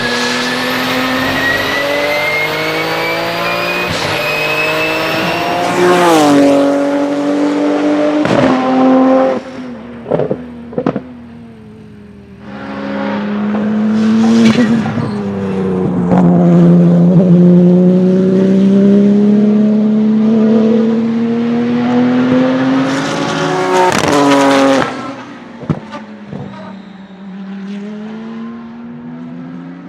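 Porsche 997 GT2 RSR's twin-turbo 3.9-litre flat-six at full throttle on a race track, with a high turbo whistle rising with the revs for about six seconds. It then lifts sharply, giving a few sharp pops, and pulls hard again for about ten seconds before lifting again and running quieter near the end.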